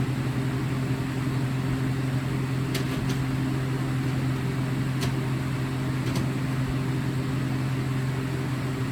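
A steady low mechanical hum, like a running motor, holding one pitch throughout, with a few faint light clicks between about three and six seconds in.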